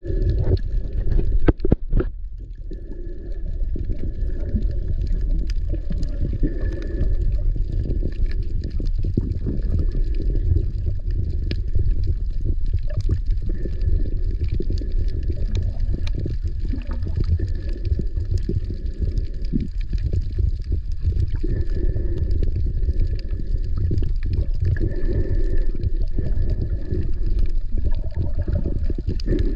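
Underwater ambience heard through a submerged GoPro camera: a steady low rumble of moving water, with a faint high steady tone. A few sharp knocks sound in the first two seconds.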